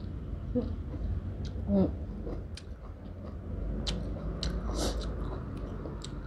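Close-up chewing and wet mouth clicks of a person eating sliced beef tripe dipped in jaew sauce. There is a brief hummed vocal sound about two seconds in.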